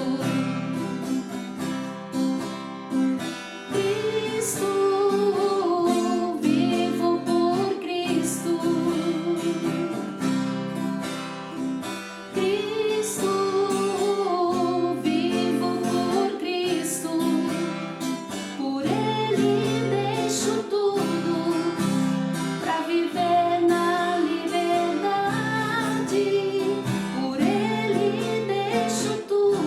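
A song with acoustic guitar accompaniment and a sung vocal melody.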